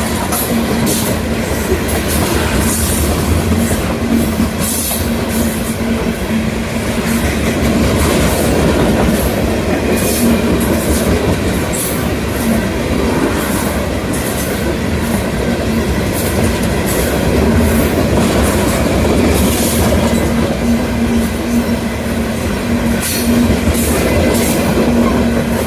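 Freight train rolling past: a steady rumble of railcars with repeated clicks of wheels over the rail joints and a constant low hum.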